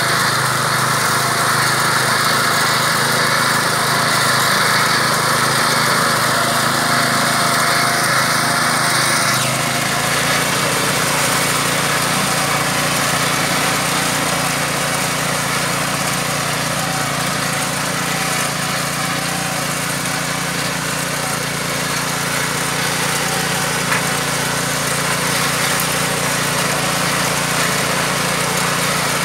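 KAMCO walk-behind crop reaper running steadily under load as it cuts through a dry crop, its small engine and cutter making a continuous mechanical drone. The tone changes abruptly about nine and a half seconds in, losing some of its higher hiss.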